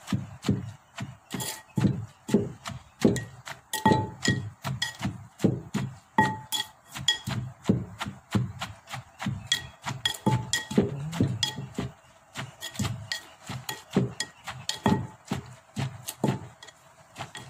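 Pestle pounding papaya salad in a mortar, a steady beat of about two knocks a second, each with a short clink.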